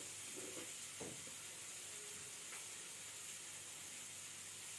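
Onion-tomato masala with spice powders frying in oil in a pan, a steady soft sizzle, with a light tap about a second in.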